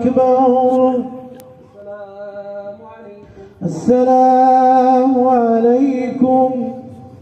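A man's voice chanting in the drawn-out, melodic style of Quran recitation, holding long steady notes. The first phrase trails off about a second in; a second phrase rises strongly about three and a half seconds in and fades near the end.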